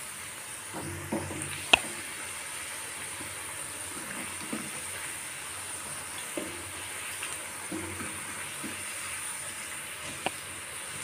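Potato-onion pakoras deep-frying in mustard oil in an iron kadhai, a steady sizzle, while a wooden spatula turns them. Twice, once near the start and once near the end, there is a sharp knock of the spatula against the iron pan.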